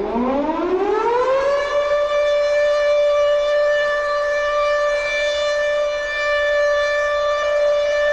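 A siren-like wail that rises in pitch over the first second and a half, then holds one steady pitch.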